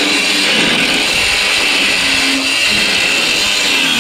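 Cordless angle grinder cutting through a rusted steel bolt in a truck bed, running steadily under load with a high whine. The bolts are too rusted to undo, so they are being cut off.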